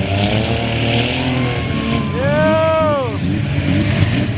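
Engines of several off-road derby cars running and revving together on a dirt track. A little past the middle, a loud high tone rises and falls over about a second.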